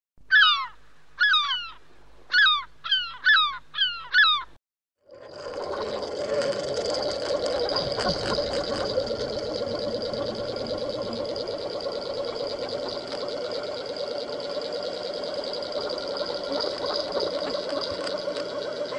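Six short, loud swooping whistles in the first few seconds. Then a steady rushing noise with a constant hum: water flowing past a camera towed underwater behind a trolling boat.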